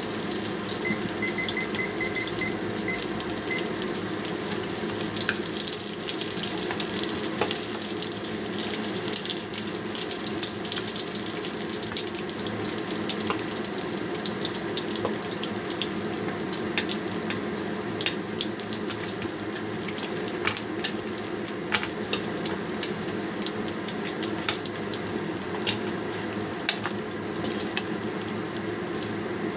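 Oxtail pieces sizzling in hot oil in a wok, a steady sizzle with frequent small crackles and pops. A quick run of high beeps comes about a second in.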